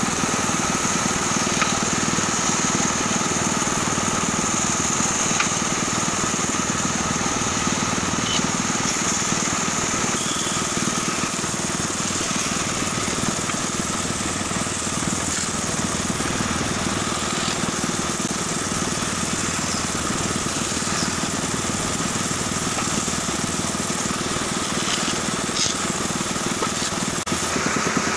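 Band saw running steadily with a constant whine as its blade cuts slots into small wooden blocks.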